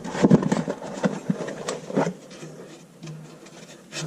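Small clicks, taps and rubbing from hands handling a part, busiest in the first two seconds, with a faint low hum behind.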